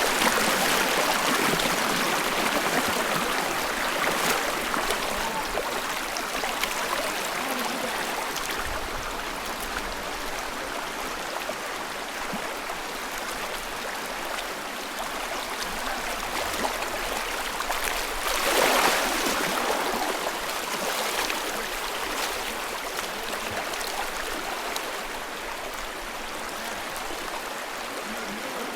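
Creek water rushing steadily over a small waterfall and rock slide, with a brief louder swell about nineteen seconds in.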